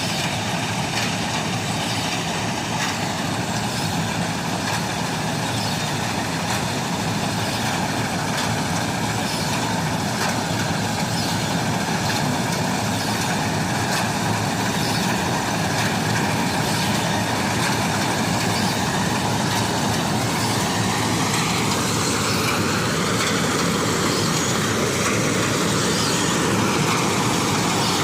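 Mini combine harvester running steadily, its engine and threshing machinery giving a dense mechanical drone, with a slight change in pitch in the second half.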